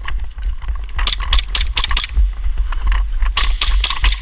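Clusters of sharp clicks and rattles, coming in quick irregular runs about a second in, near two seconds and again from about three seconds on, over a steady low rumble.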